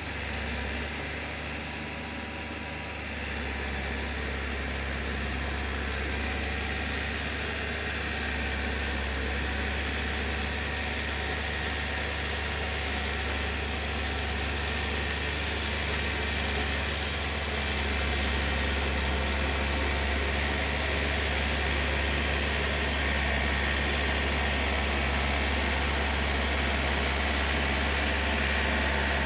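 Small tractor's diesel engine running steadily as it works a flooded rice paddy, pulling an implement through the mud; it grows louder as the tractor comes nearer, stepping up about three seconds in and again past the halfway point.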